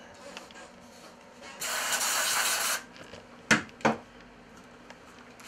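One burst of aerosol cleaner sprayed from a can onto fishing reel parts, a steady hiss about a second long, to wash the salt off. Two sharp knocks follow shortly after.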